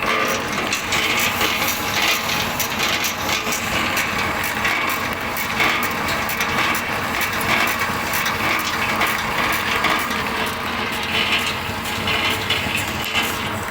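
Wood pellet mill running under load: a steady, loud mechanical din with a dense, rapid crackling and clicking throughout.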